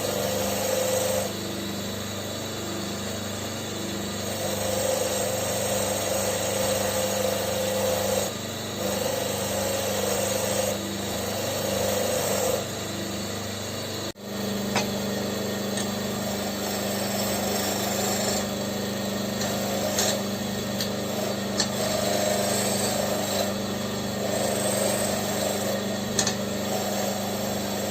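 Homemade bench grinder driven by a washing-machine motor running steadily with a constant hum, with a scraping, grinding sound that comes and goes several times as work is pressed against the wheel.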